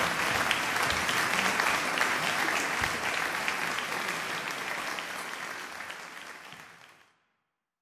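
Audience applauding, the clapping fading out over the last few seconds and ending in silence.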